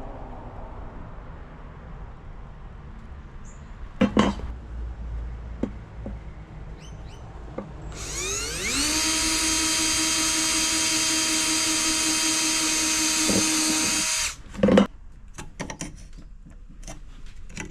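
Power drill motor spinning up with a rising whine, running steadily for about six seconds, then stopping. There are a couple of sharp knocks before and after it.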